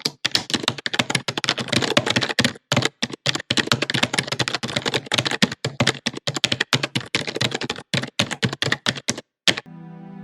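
Rapid, irregular clicking of keys, like typing on a keyboard, which stops about nine and a half seconds in. Soft music with held tones starts right after.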